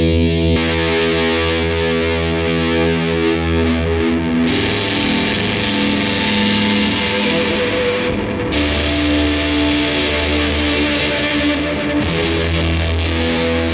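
Electric guitar played through a super fuzz pedal into a hall reverb: thick, distorted chords held and washing into long reverb tails, changing about every four seconds.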